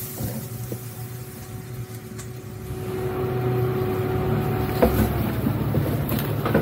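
Jeep Cherokee XJ engine running at low speed as the vehicle drives slowly off-road, a steady low hum that grows louder about three seconds in, with a faint steady whine over it. A few light snaps and ticks come from branches brushing the body.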